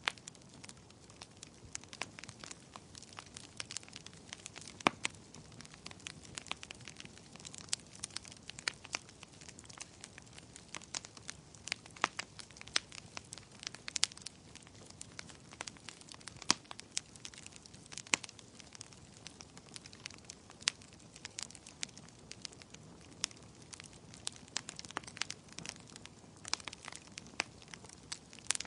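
Wood fire crackling: sharp irregular pops and snaps, several a second, over a soft steady hiss of burning.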